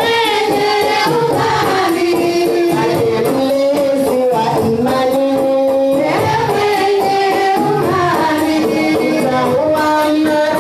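Comorian tari, a traditional women's wedding song: voices sing a melody in long, sliding held notes over a steady, fast percussion beat.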